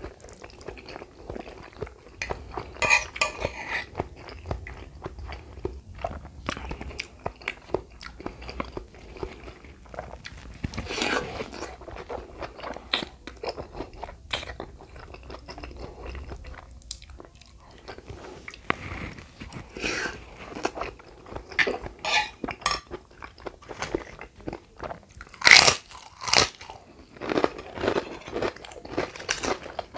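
Close-miked eating of lontong padang with gulai curry, rice vermicelli and egg: wet chewing and smacking with irregular crunches, loudest about three quarters of the way through.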